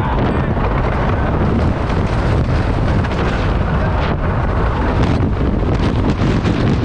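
Minebuster wooden roller coaster train running along its wooden track, a steady rumble with rattling clacks, under heavy wind buffeting the onboard microphone.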